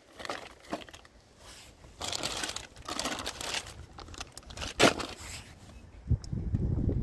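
Clear plastic bag crinkling in bursts as it is handled, with one sharp click in the middle. Wind buffets the microphone near the end.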